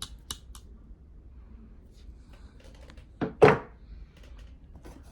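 Hand tools being handled at a tool bag: a few light clicks at the start, then a dull double thunk a little over three seconds in.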